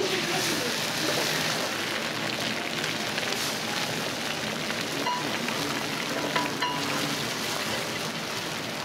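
Eggs frying on a hot iron griddle: a steady sizzling hiss that jumps up as the cracked eggs hit the plate.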